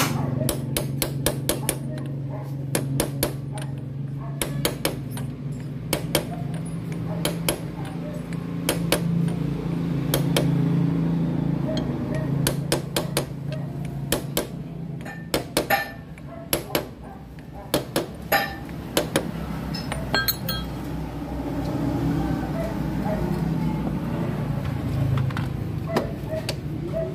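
Repeated sharp metallic taps and clinks of hand tools working on an engine's sprocket shaft, coming thick in the first few seconds and again in the middle, over a steady low hum.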